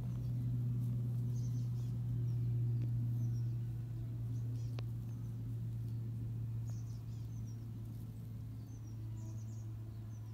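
Outdoor ambience: a steady low hum with faint, scattered high-pitched bird chirps over it.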